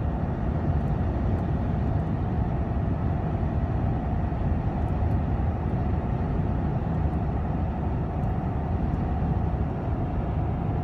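Steady road and engine noise inside the cabin of a moving pickup truck.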